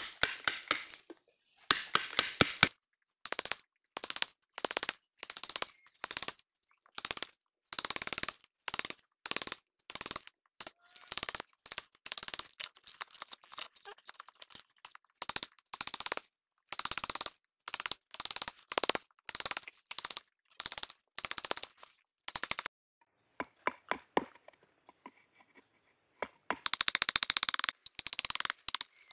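Hammer striking the wooden handle of a carving gouge as it chops into the hollow of a wooden bowl blank: sharp blows at about one a second, each with a crack of cutting wood. Near the end comes a longer scraping stretch as the gouge pares the wood.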